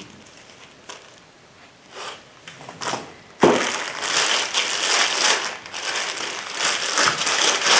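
Packaging being handled: a few light knocks, then from about three and a half seconds in a continuous crinkling and crackling as the wrapping is crumpled and pulled.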